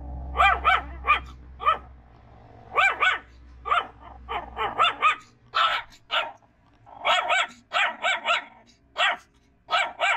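Young puppies yapping: short, high-pitched barks in quick runs of a few at a time, with brief pauses between runs. A low hum sits under the first half and fades out about halfway.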